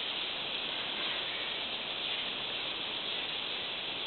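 Steady chorus of rainforest insects, a high hissing drone that holds at an even level throughout.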